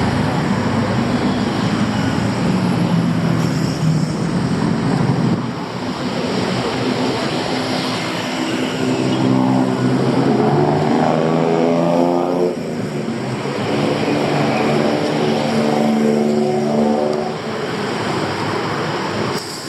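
Street traffic: motor vehicle engines running, one speeding up with a rising pitch around ten seconds in, then another engine holding a steady note.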